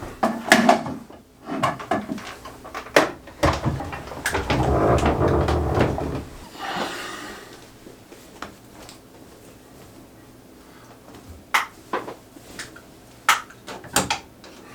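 Things being handled and set down on a work surface: scattered clicks and knocks, with about three seconds of loud rustling a few seconds in.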